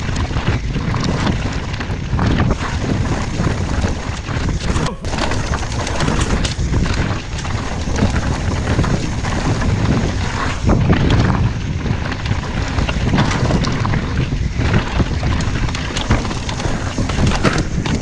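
Wind buffeting the microphone of a camera on a mountain bike riding a rocky trail, with a steady rumble and frequent rattles and knocks from the bike over the ground.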